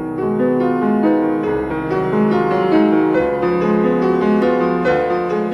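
Background music led by a piano or electric piano playing a gentle melody over chords.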